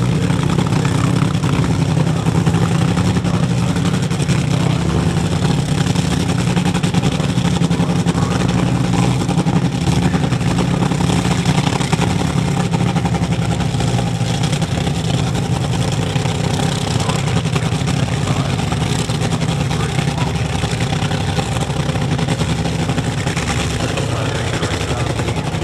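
Drag racing car's engine running steadily at a loud idle, with no revving.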